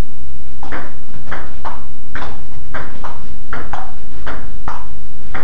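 Table tennis rally: the celluloid ball clicking off paddles and bouncing on the table, about two sharp hits a second, back and forth.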